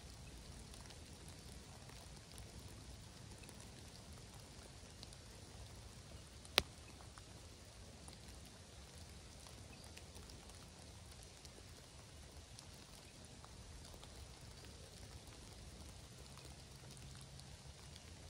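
Faint light rain: scattered raindrops ticking over a soft hiss, with one sharp tap about six and a half seconds in.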